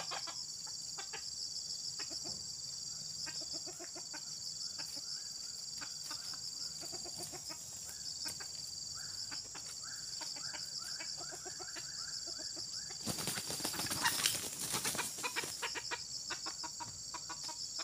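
Red junglefowl (Sumatran jalak) roosters clucking in short repeated calls, with a loud burst of wing flapping about thirteen seconds in. A steady high insect buzz runs underneath.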